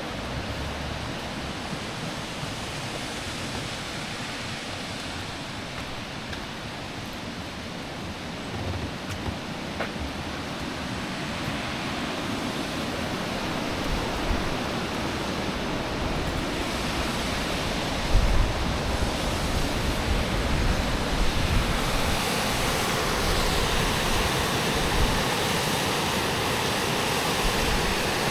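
Rushing river water, a steady noise that grows gradually louder, with wind gusts buffeting the microphone, strongest about two-thirds of the way in.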